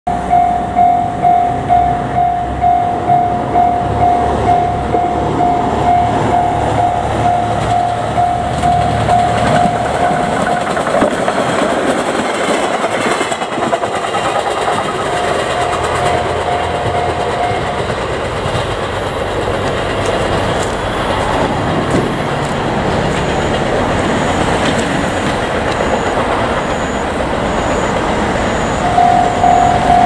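Japanese level-crossing alarm ringing in a steady pulse of about two strokes a second. Partway through it is drowned by a JR Kyushu 817-series electric train passing over the crossing, with wheels clattering on the rails. The alarm rings out loud again near the end.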